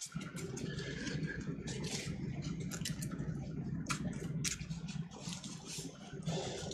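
Steady low hum with light clicks scattered through it.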